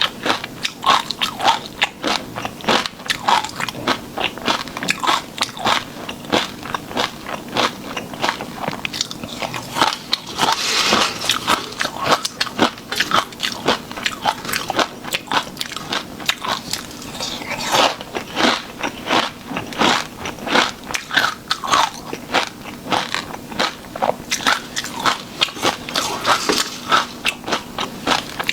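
Close-miked eating: continuous crunching and chewing with many small crackling bites in quick, irregular succession.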